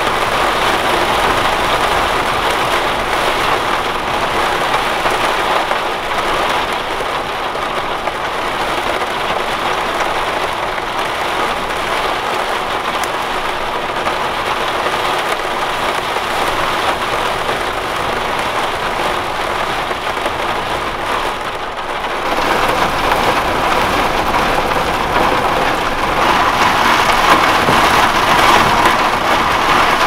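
Heavy storm rain beating steadily on a van's roof and windscreen, heard from inside the van. It grows heavier and louder some twenty seconds in.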